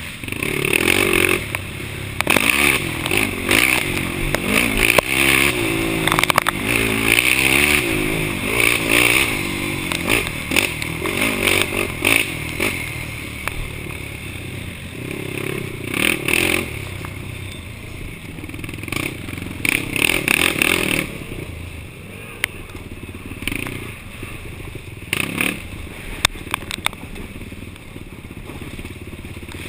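Yamaha YFZ450 ATV's single-cylinder four-stroke engine revving up and down as it is raced over rough ground, heard from a helmet camera, with rattles and knocks from the machine. The engine gets quieter in the last third.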